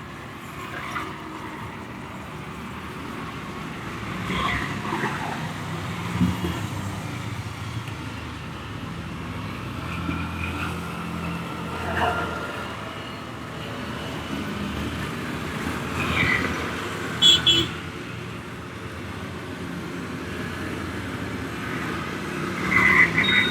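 Road traffic passing by: a steady low rumble of vehicle engines, with a few short sharp sounds about three-quarters of the way through.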